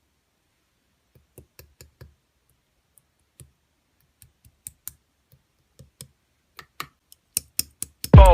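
Scattered short clicks and taps at an uneven pace, faint at first and louder over the last couple of seconds. Loud music with falling bass sweeps comes in just before the end.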